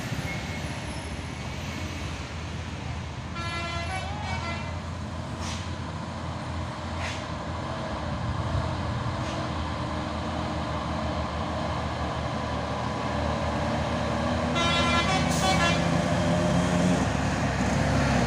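Slow hill-climb traffic of trucks and cars with engines running, and a vehicle horn sounding twice, each for about a second: once about three seconds in and again near fifteen seconds. The engine noise grows louder near the end as a vehicle draws close.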